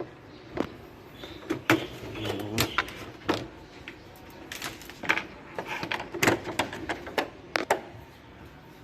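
Irregular sharp clicks and knocks of plastic parts from an air conditioner's casing being worked loose and pulled off by hand, with a little scraping between them.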